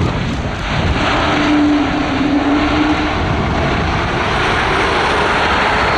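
Airbus A220-300's Pratt & Whitney PW1500G geared turbofan engines running as the jet rolls along the runway: a steady, loud rushing noise that swells just under a second in. A brief steady hum sits underneath it for about two seconds.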